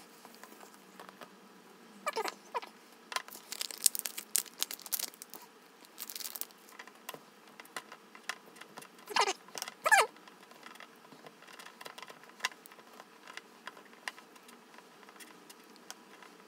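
Light clicks and scrapes of chopsticks against a small ceramic dish as a piece of grilled tuna is pulled apart, with some soft crinkling. A cat gives short mews a few times, near the start and twice in the middle; these are the loudest sounds.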